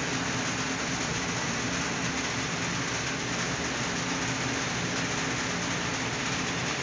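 Steady machinery hum with an even hiss, unchanging throughout.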